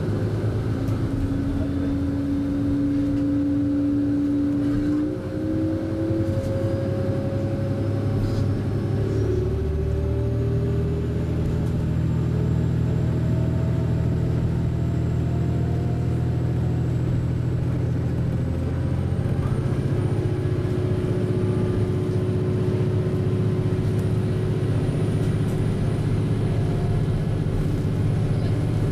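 Diesel railcar under way, heard from inside the cabin: a steady engine and running hum with tones that rise in pitch, stepping up about nine seconds in and again about eighteen seconds in.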